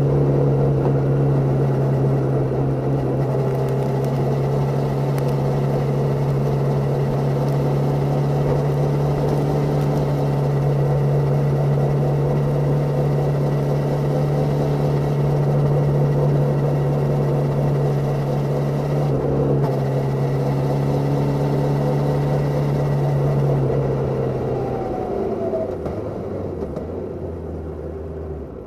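Suzuki Katana 750's inline-four engine running at steady, fairly high revs, heard from under the seat. About 24 seconds in the revs fall away and the engine note drops lower and quieter, heading back towards idle.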